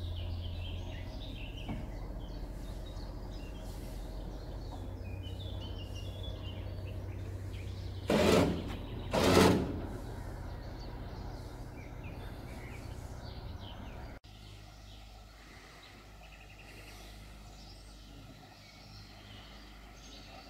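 Steady low hum of a motor cruiser's engine under way, with birds chirping. About eight seconds in come two loud, short blasts of noise about a second apart. About fourteen seconds in the engine hum stops abruptly, leaving quieter ambience with faint bird chirps.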